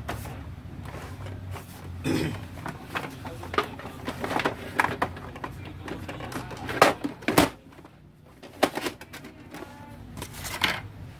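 Irregular plastic clicks and knocks from hands handling an Epson L360 inkjet printer, including the scanner unit being lowered shut; the loudest pair of clacks comes about seven seconds in.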